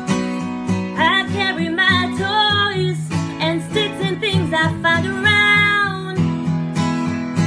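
Acoustic guitar strummed in a steady rhythm, with a woman singing two phrases over it from about a second in until near the end.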